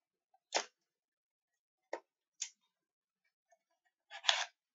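Handling of a boxed makeup palette: a few short clicks and taps, then a louder rasping scrape about four seconds in.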